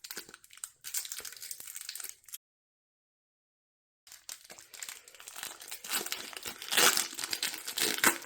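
A foil booster-pack wrapper crinkling and being torn open. The sound cuts out completely for about a second and a half partway through, then the crinkling resumes and grows loudest near the end.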